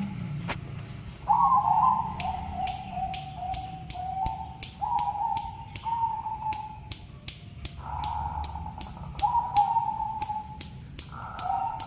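Zebra dove (perkutut) cooing in a run of repeated phrases, each about a second long and stepping down in pitch. Sharp clicks sound steadily behind it, about twice a second.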